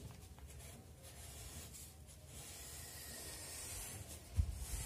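Tailor's chalk scratching across a newspaper paper pattern as a line is drawn, with faint rustling of the paper. A short soft thump near the end.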